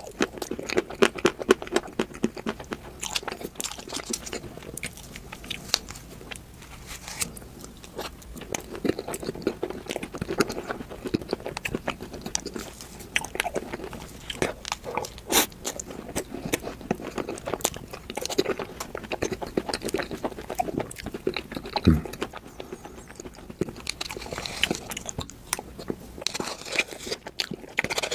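Close-miked eating of soft ice cream cake: chewing with wet mouth smacks and many sharp little clicks.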